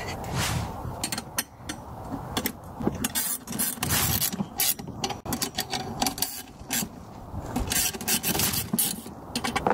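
Small metal hardware being fitted with a wrench: irregular clicks, rattles and scrapes of nuts, bolts and a wrench against the spreader's steel handle and pivot bracket. The bolts are only being snugged, not cranked down.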